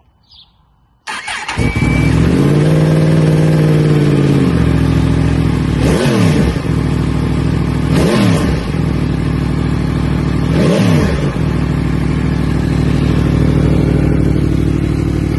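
Yamaha MT-10's crossplane inline-four running through a Scorpion Red Power slip-on exhaust, with the stock catalytic section kept. It comes in suddenly about a second in, is revved up and back down once, then settles to idle with three short throttle blips about two to three seconds apart.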